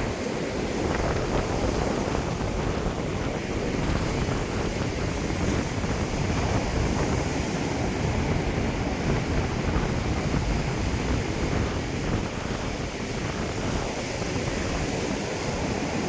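Ocean surf washing on a beach, with wind rumbling on the microphone.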